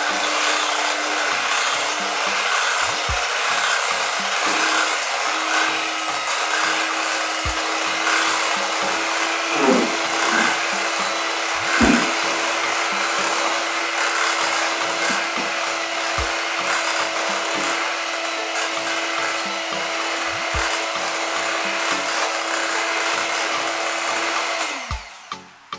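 Scarlett electric hand mixer running steadily, its beaters whipping cream in a glass bowl until it turns fluffy; the motor stops about a second before the end.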